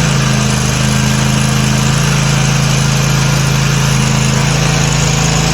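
Toro TimeCutter zero-turn mower's engine running steadily at a constant speed.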